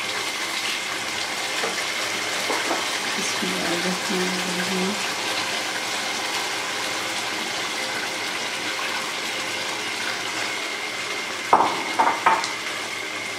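Chicken and potato curry simmering in a karahi, a steady sizzling hiss, as wet chopped spinach is scraped in with a silicone spatula. A few sharp knocks near the end as the spatula strikes the pan.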